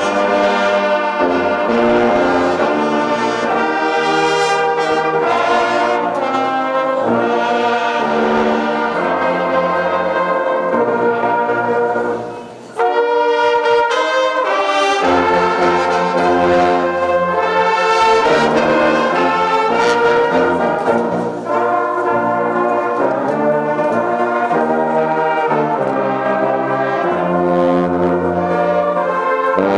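A brass band of trumpets, baritone horns and sousaphones playing a piece in held, full chords, with a short break about twelve seconds in before the music resumes.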